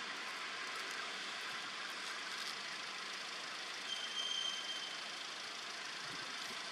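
Steady outdoor forest ambience: an even hiss with no clear calls, broken about four seconds in by one brief, thin, high-pitched squeal.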